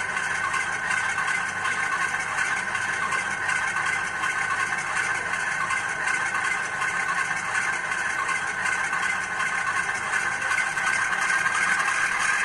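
Sound decoder of an HO-scale DF5 model locomotive (ESU LokSound 5) playing a recording of the real DF5 diesel prime mover notching up, heard through the model's small onboard speaker. It runs steadily and grows a little louder near the end.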